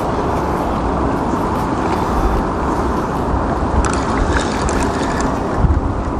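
Wind buffeting the microphone: a steady, loud rumble. About four seconds in there is a brief run of light ticks.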